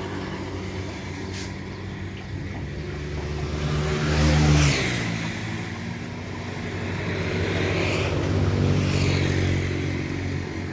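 Motor vehicle engine running steadily, its pitch rising and then dropping about four and a half seconds in, with the whoosh of passing traffic sweeping by several times.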